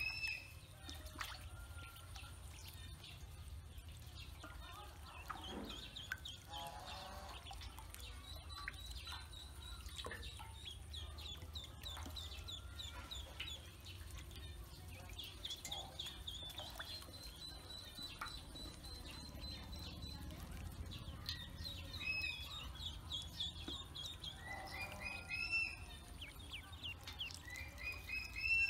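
A group of ducklings peeping: a steady stream of short, high-pitched peeps, with a few lower calls now and then.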